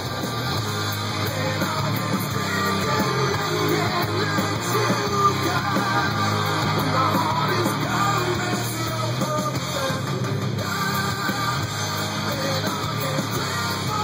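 Hard rock music playing, with shouted vocals over electric guitar.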